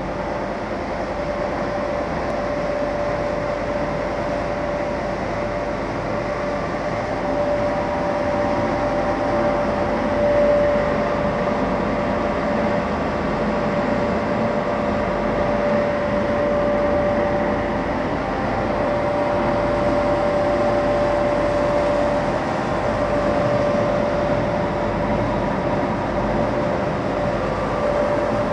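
SKJ450 pellet mill line running steadily, with its electric motors, belt conveyor and pellet mill working together. A constant mechanical din with one clear steady hum held above it.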